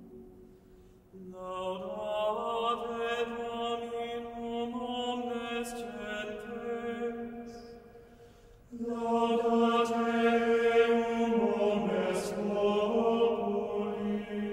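Soundtrack music of sustained, chant-like choir voices holding long chords. It swells in about a second in, fades briefly around eight seconds, and comes back louder at about nine seconds.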